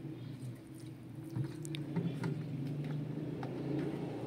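A low, steady hum with scattered light clicks and small knocks over it.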